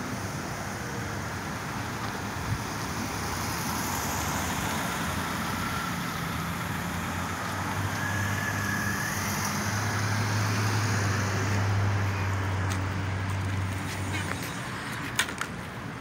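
Road traffic noise with the low, steady hum of a vehicle engine that comes in about halfway through, grows louder and stops shortly before the end. A few sharp clicks near the end.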